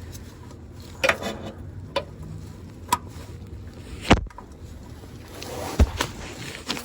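Channel-lock pliers clicking and knocking against a spin-on oil filter as it is being tightened: a handful of separate metallic knocks over a low rumble, the loudest about four seconds in.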